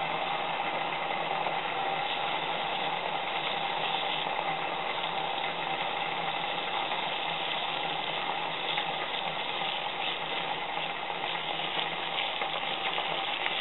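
Water in a small backpacking pot on an alcohol stove hissing and bubbling steadily as it comes to a rolling boil.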